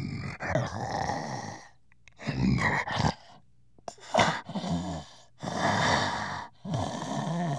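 Gorilla breathing heavily: about five loud, rasping breaths in a row, separated by short pauses, some carrying a low pitched vocal tone.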